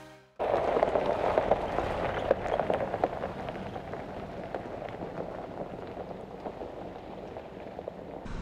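Jeep's tyres crunching over a gravel road as it drives away, a dense crackle of stones that starts suddenly and fades as the vehicle gets farther off.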